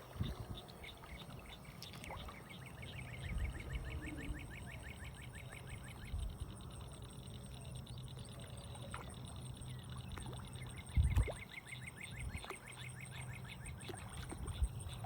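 Outdoor ambience with insects calling in fast, even, repeating chirps high in pitch, over a steady low hum. A few dull thumps come through, the loudest about eleven seconds in.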